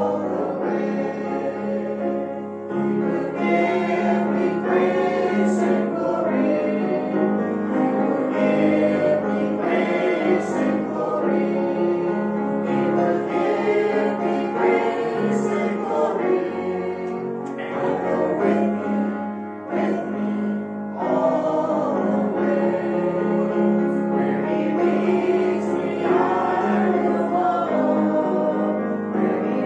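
Choir singing a church hymn in several voices, in sustained phrases with short breaths between them.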